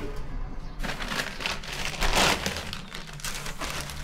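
Rustling and shuffling of clothing and objects being rummaged through by hand, in a search for a lost document; the rustling starts about a second in and is loudest a little past the middle.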